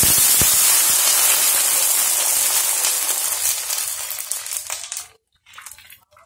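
Water poured into a hot oiled pan of sautéed garlic, hissing and sizzling loudly as it turns to steam on the hot surface. The hiss fades after about three seconds and stops about five seconds in as the pan cools under the water.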